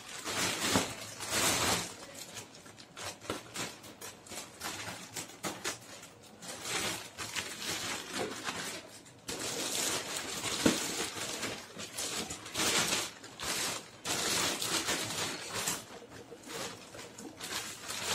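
A shipping package being torn open and unwrapped by hand: rustling and crinkling of the packaging, with ripping sounds and scattered sharp clicks.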